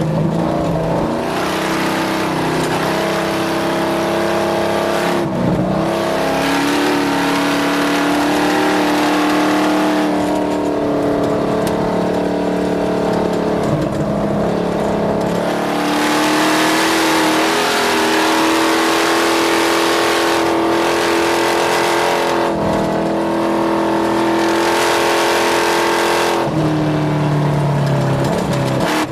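Off-road race vehicle's engine running hard at high revs, its pitch dropping every few seconds as the revs fall and climb again, over a loud rushing noise.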